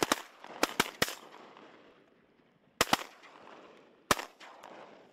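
Duck hunters' shotguns firing at ducks flying over: a quick run of about five shots in the first second, two more close together near three seconds, and a last one about four seconds in, each trailing a short echo.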